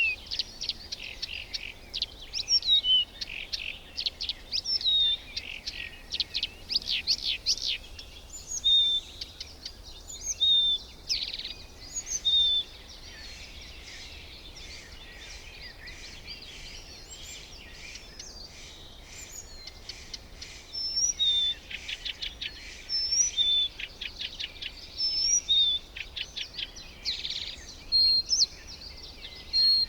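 Birds calling: bursts of rapid high chirps and trills mixed with short clear whistled notes, busiest near the start and end and sparse in the middle, over faint background hiss.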